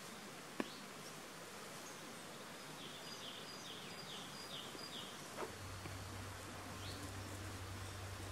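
Quiet garden ambience with a bird singing a short phrase of about five quick repeated high notes. A single sharp tick, the loudest sound, comes about half a second in, and a steady low hum sets in a little past halfway.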